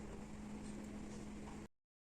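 Faint room tone: a quiet hiss with a steady low hum. It cuts off abruptly to dead silence near the end.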